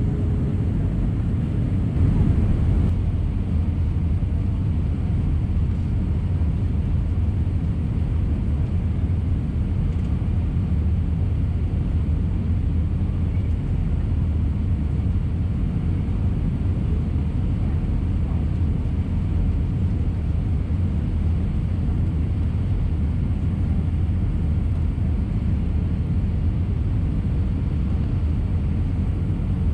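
Steady low cabin roar of an Airbus A319 airliner in flight, heard from a window seat, with a brief louder swell about two seconds in.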